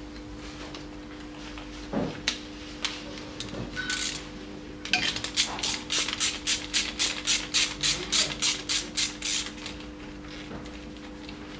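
Ratchet wrench working on the cylinder head of an Iveco Daily 2.3-litre F1AE diesel engine, while the compression-test gauge is moved from one cylinder to the next. A few scattered metal clicks and knocks come first, then a fast, even run of clicks, about four or five a second, that stops a little after two-thirds of the way through.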